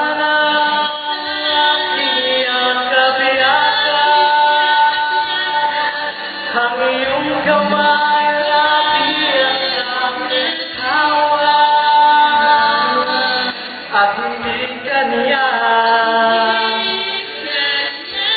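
A man and a woman singing a Filipino love-song duet into microphones, amplified over music, with long held notes and sliding pitches.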